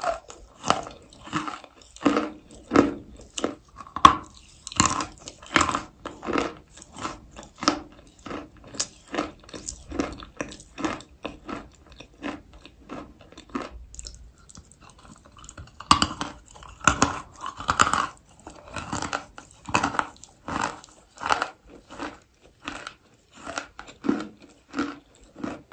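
A person biting and chewing chalk close to the microphone: steady crunching, about two to three crunches a second, with a short pause a little past halfway.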